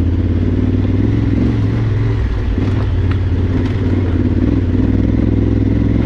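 Large adventure motorcycle's engine running at low, steady revs while riding over a rocky dirt trail, with a few short clicks and knocks from stones and the bike.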